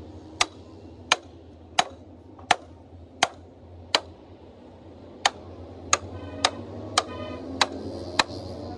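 Hand hammer striking a chisel against a steel bracket plate on a truck chassis frame rail, about a dozen sharp metal blows roughly one every 0.7 s with a short pause midway. A few of the later blows leave a brief metallic ring.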